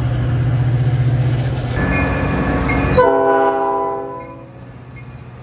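Metra commuter train rumbling past, then its horn sounding a chord about three seconds in that fades away over the next second and a half.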